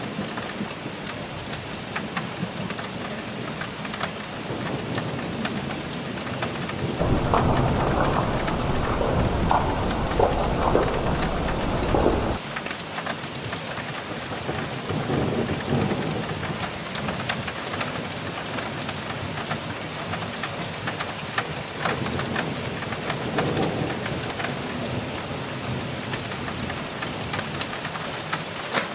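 Thunderstorm: steady heavy rain with drops ticking close by, and thunder rolling. A loud rumble starts about seven seconds in and cuts off suddenly about five seconds later, then fainter rumbles follow twice.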